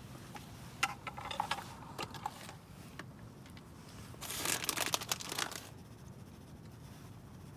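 Two bursts of rustling and crinkling with a few sharp clicks, the second, about four seconds in, the louder: something, likely wrapping or packaging, being handled.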